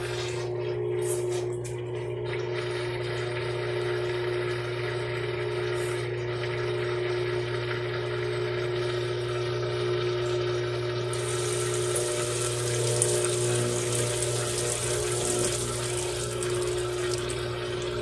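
Brastemp top-loading washing machine running, a steady motor and pump hum with water rushing as the basket and agitator turn the wet laundry. A brighter hiss of water joins about eleven seconds in.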